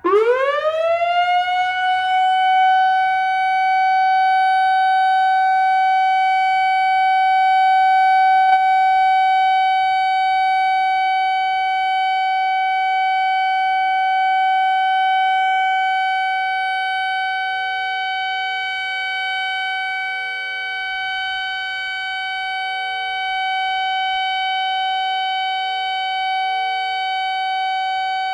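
Whelen WPS-2750 electronic outdoor warning siren sounding its steady Alert signal. Its pitch sweeps up over about two seconds, then holds one loud, steady tone with several overtones.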